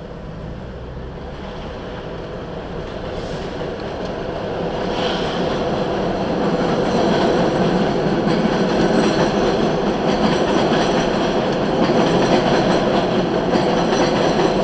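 Elevated subway train running over the steel el structure, heard from inside a car passing beneath it. It grows louder over the first seven seconds, then stays loud.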